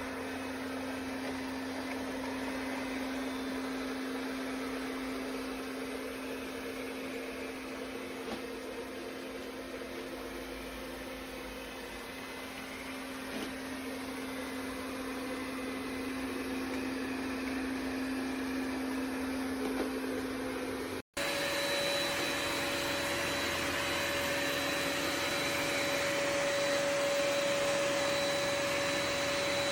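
Ecovacs Deebot X9 Pro Omni robot vacuum running with a steady whirring hum. About two-thirds of the way through, the sound cuts off abruptly and resumes as a louder, higher-pitched whir with a thin whine on top.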